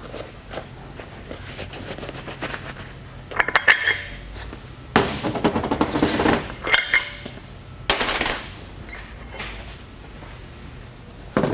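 Metal parts of a snowmobile primary (drive) clutch clinking and scraping as they are lifted off the shaft by hand and set down, in a series of separate clanks and short scrapes.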